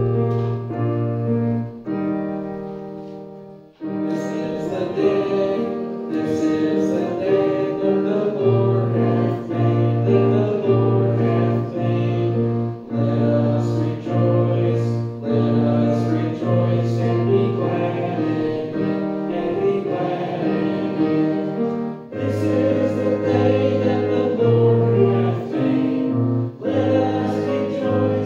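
A congregation singing a hymn with piano accompaniment, in slow held chords. The music breaks off briefly about four seconds in, then the singing carries on.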